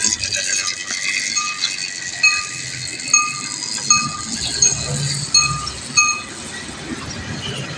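A short high beep repeating about every three quarters of a second, eight times, over a faint low hum.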